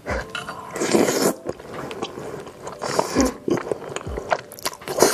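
Close-miked slurping and chewing of fettuccine noodles in cream sauce, in repeated bursts, the loudest about a second in.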